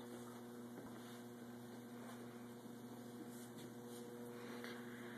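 Electric potter's wheel motor running with a steady low hum.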